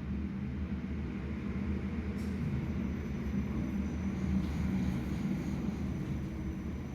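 Station passenger lift travelling between levels: a steady low hum and rumble from the lift machinery and car, with a faint high tone coming in about two seconds in.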